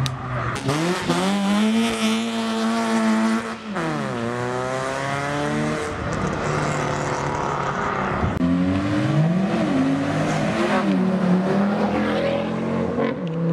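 Modified car's engine revving hard under acceleration, its pitch climbing, dropping sharply about four seconds in, and climbing again. A second set of revs rises after a break about eight seconds in.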